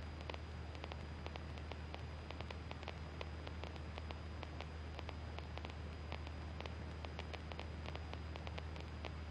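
Faint steady hiss of radio static with many irregular crackling clicks and a low steady hum: an idle aircraft intercom or radio audio line with no one transmitting.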